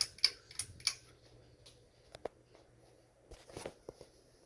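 Harbor Breeze Breezeway ceiling fan being switched to high: a quick run of sharp clicks and rattles from the pull-chain switch in the first second, a few scattered clicks later, over the motor's faint low steady hum.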